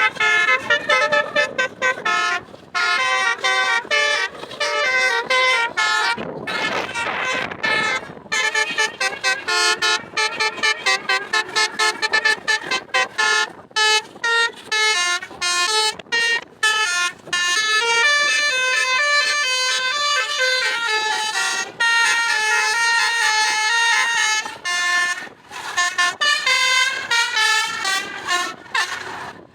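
Basuri telolet multi-tone bus horn playing a rapid tune of short chopped notes, with some longer held notes in the second half. A brief rush of noise sounds under the notes about six to eight seconds in.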